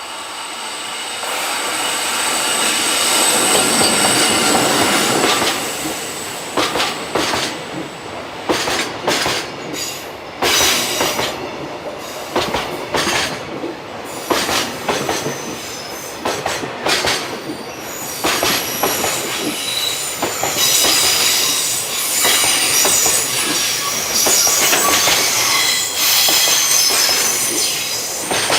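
Freight train rolling past at close range, its wagon wheels squealing against the rails on the tight curve of the line, with repeated clacks over rail joints. The sound builds over the first few seconds, is mostly clacking through the middle, and the squeal grows strong again in the second half.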